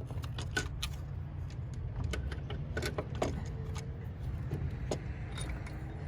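Scattered light metallic clicks and clinks as a replacement car alternator and its bolts are handled during installation, over a steady low rumble.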